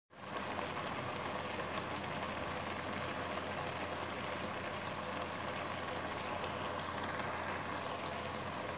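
A pot of rice cooking in sugar syrup over a medium gas flame, simmering with a steady bubbling hiss.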